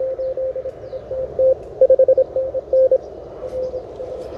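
Morse code (CW) signal on the 20-metre amateur band coming from a Malahit DSP2 receiver's speaker: a single tone keyed on and off in dots and dashes over steady band hiss. The signal grows fainter for the last second or so.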